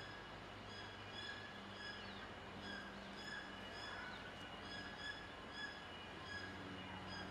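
Faint outdoor background: a short high chirp repeating about twice a second, with a few brief rising whistles, over a steady low hum.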